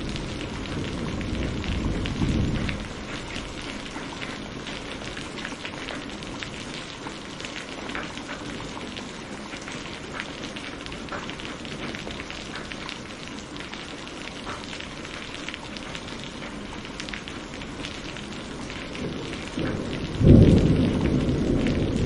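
Tropical rain falling steadily on rainforest foliage, with many distinct drips. A low thunder rumble dies away in the first few seconds, and a loud roll of thunder breaks in near the end.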